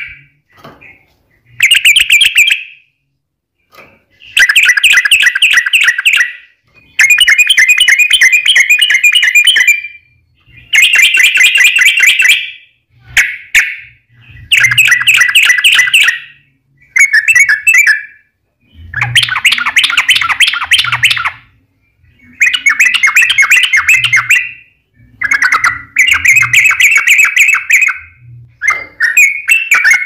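Yellow-vented bulbul (trucukan) singing loud, fast, chattering phrases, each one to three seconds long, with short pauses between them. This is the energetic 'gacor' fighting song.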